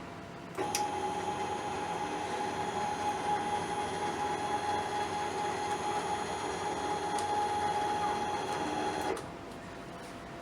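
Stepper servo motor driving a belt-and-pulley linear actuator axis at constant speed, giving a steady whine. It starts suddenly about half a second in and stops suddenly about 9 s in.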